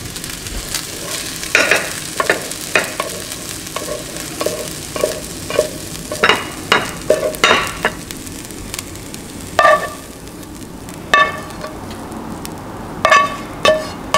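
Black slotted spatula scraping fried rice and steak out of a non-stick skillet onto a plate, knocking against the pan many times, some knocks leaving the pan briefly ringing, over a scraping, sizzle-like rustle of the rice.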